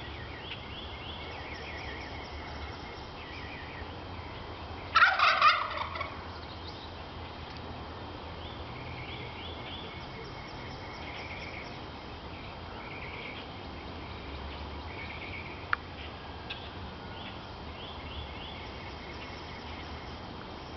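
Wild turkey gobbling once, a short rapid rattling call about five seconds in.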